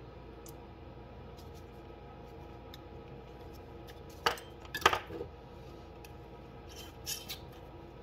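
Small glass jars and a plastic syringe being handled and set down on a wooden workbench: faint ticks, then a few sharp clacks about halfway through and again near the end, over a faint steady hum.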